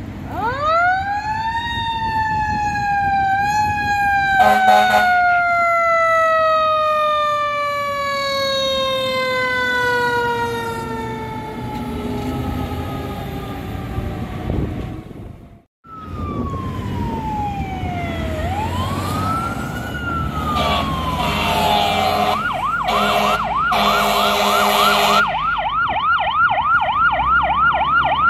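Fire truck's mechanical Federal Q siren winding up to full pitch, then coasting slowly down, with a short air horn blast about five seconds in. Later, a fire truck's electronic siren wails down and up, then switches to a fast yelp of about four sweeps a second, over repeated air horn blasts.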